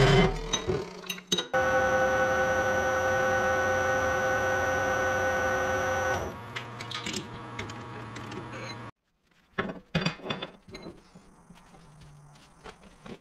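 A cold saw finishes cutting through steel rod, and then a metal lathe runs with a steady whine of several fixed pitches that stops about six seconds in. Light clicks and knocks of metal parts being handled follow.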